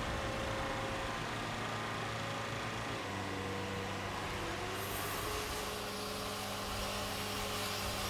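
Serra Montana AD 90 mobile band sawmill running with a steady engine hum. Its tone steps up about three seconds in, and a brighter hiss of the band blade cutting through the log grows about five seconds in.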